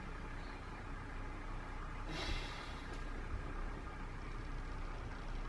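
Steady low background rumble of room noise, with one short rustle about two seconds in.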